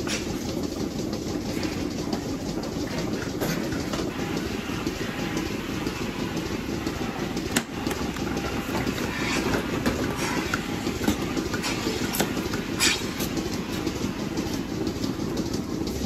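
Vacuum milking parlour equipment running with a steady low mechanical rumble. Scattered clicks and metal clanks come from the teat-cup clusters being handled and attached, the sharpest about halfway through and again about three-quarters of the way in.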